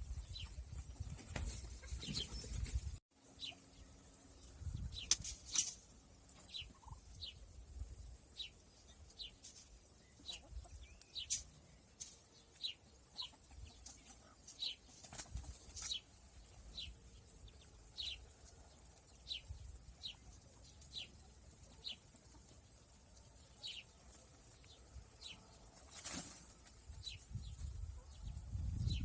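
A bird chirping over and over: short, high, downward-sliding chirps, about one or two a second, with low rumbles underneath.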